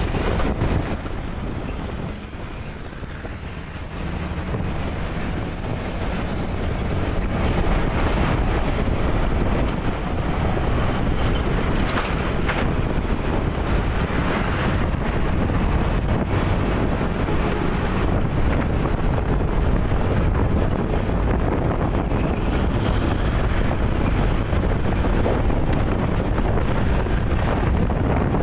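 Wind buffeting the microphone of a moving motorcycle, over steady road and engine noise, dipping quieter for a few seconds near the start.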